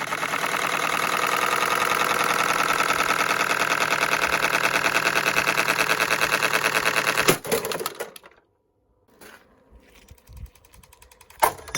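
Ventilation fan running with a rapid, even rattling clatter, which cuts off about seven seconds in, leaving only a few faint knocks and a sharp click near the end.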